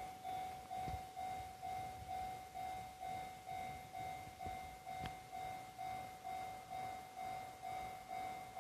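Japanese railway level-crossing warning alarm ringing its repeated electronic clanging tone, about two strikes a second, over a faint low rumble.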